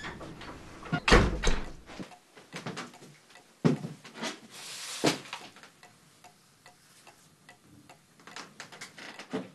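Scattered knocks and thuds of a door and people moving about a small room, the loudest a heavy thump about a second in, with a short scrape near the middle.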